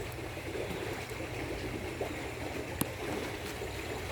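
Water trickling and sloshing at a steady level, with one sharp click a little under three seconds in.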